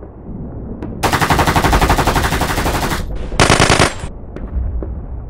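Automatic gunfire sound effect: a long burst of rapid fire starting about a second in and lasting about two seconds, then a short second burst half a second later, over a low rumble.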